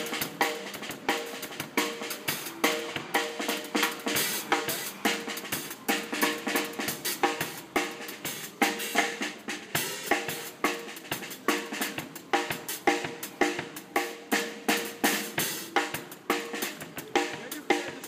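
Small Mapex drum kit (bass drum, snare and a single cymbal) played in a fast, busy beat with many quick strokes, the snare ringing with a clear tone after its hits.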